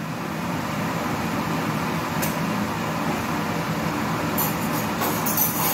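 Steady hum and rush of air from a household fan unit, with a few faint clicks and clinks near the end.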